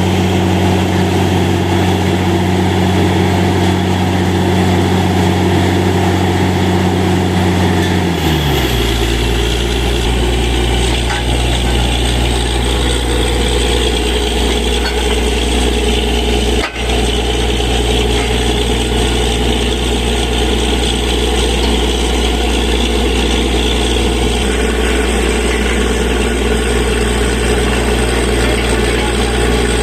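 Borewell drilling rig's diesel engine running steadily at speed. About eight seconds in, its pitch drops as it slows, then it holds steady at a lower speed.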